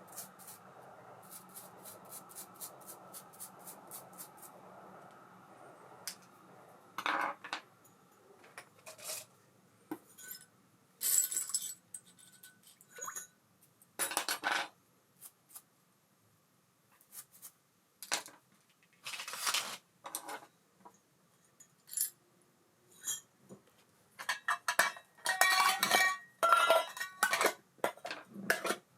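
Small metal parts of a baitcasting reel clinking and clattering as they are handled and set down, in scattered sharp knocks that come thick near the end. A rapid, even ticking sounds over a faint hum for the first few seconds.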